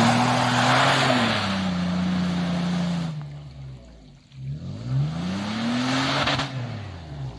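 Toyota FJ Cruiser's V6 engine revving hard twice as its tyres spin and churn through deep snow: each time the engine speed climbs, holds briefly and falls back, with a hiss of spinning tyres and flying snow over it. It dies down for a moment about four seconds in, between the two revs.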